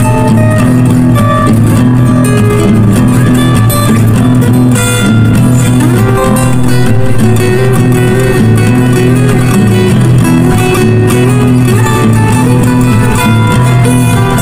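Instrumental background music led by plucked guitar, playing continuously.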